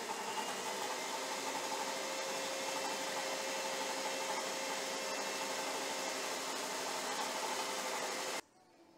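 Electric stand mixer running steadily, its wire whisk beating a cream and condensed-milk mixture in a stainless steel bowl. The motor noise cuts off suddenly near the end.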